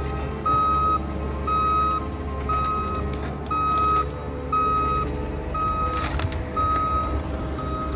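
Backup alarm of an ASV RT-120 track loader beeping steadily about once a second, seven beeps, over its running diesel engine as the machine reverses. A brief burst of noise sounds about six seconds in.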